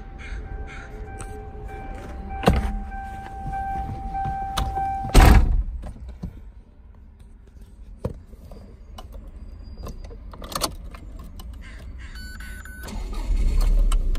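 A car door shuts with a thud about five seconds in, among scattered clicks, handling noise and keys jingling inside a parked car with its engine off.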